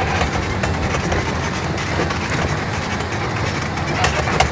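Inside a vehicle cab driving on a rough gravel road: a steady rumble with constant rattling and clattering, and two sharper knocks near the end.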